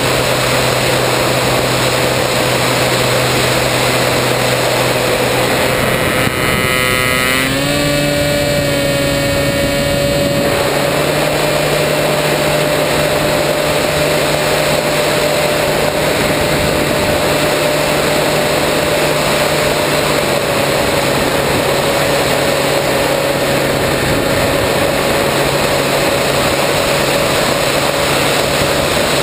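Wind rushing over an onboard camera on a 3 m electric RC plane, with the steady whine of its electric motor and propeller. About seven seconds in, the whine steps up slightly in pitch as the motor speeds up, with a brief sweep of higher rising tones that fades by about ten seconds.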